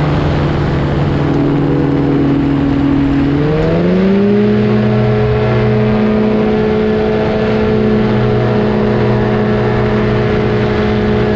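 Powered parachute's engine and propeller running steadily, then throttled up about three and a half seconds in, the pitch rising and then holding at the higher speed.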